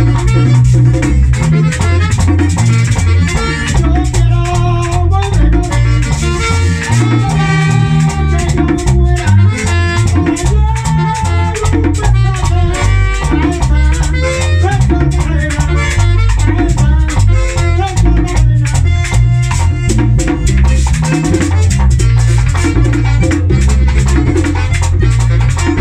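Live Dominican típico band playing an instrumental stretch: button accordion carrying the melody over a steady bass, with tambora drum, congas and a scraped metal güira keeping a constant rhythm, and saxophone joining in.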